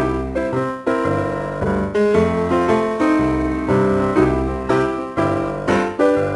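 Background music led by a piano or electric keyboard, with a bass line and a steady beat of note changes.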